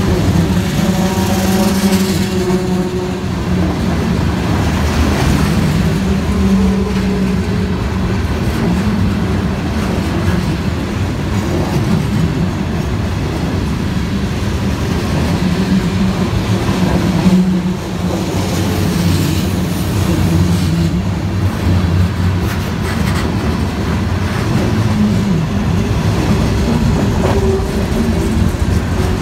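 Freight cars of a Norfolk Southern train (coil cars, gondolas and flatcars) rolling past at close range: a steady loud rumble of steel wheels on the rails with clickety-clack over the rail joints.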